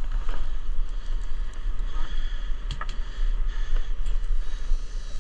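Steady low rumble of wind buffeting the microphone aboard a fishing boat at sea, with a couple of sharp clicks about halfway through.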